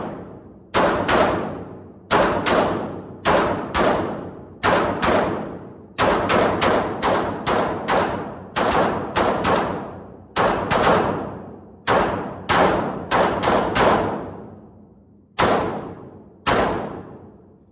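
Two semi-automatic Ranger pistols fired rapidly by two shooters side by side, a few shots a second in irregular overlapping strings, each shot echoing in an enclosed indoor range; two last spaced shots near the end.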